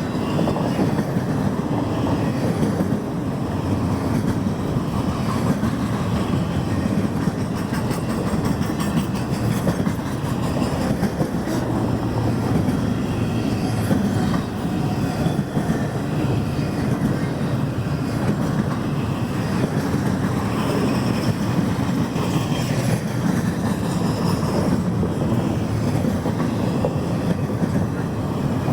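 A Union Pacific freight train's cars rolling steadily past close by, their steel wheels running on the rails.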